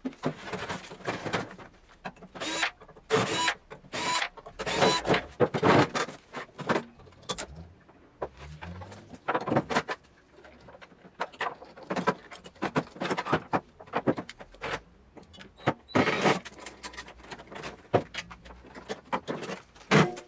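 A microwave oven being taken apart to remove its transformer and capacitor: a run of sharp clanks, rattles and knocks from sheet metal and loose parts. There are a few short whirs of a cordless drill-driver.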